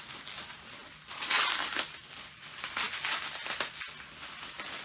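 Plastic bubble-wrap packaging crinkling and rustling as hands work it off a mask, with a louder burst of crinkling about a second and a half in.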